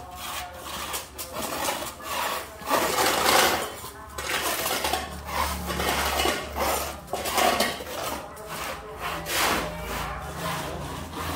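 Hand brush sweeping sand across concrete paving blocks in repeated scraping strokes, about one a second, working the sand into the joints between the pavers.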